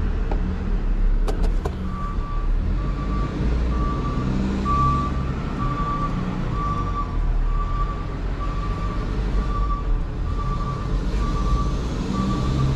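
Rollback tow truck's backup alarm beeping in reverse, one even beep about every second starting about two seconds in, over the low, steady running of the truck's engine, heard from inside the cab. A few sharp clicks come just before the beeping starts.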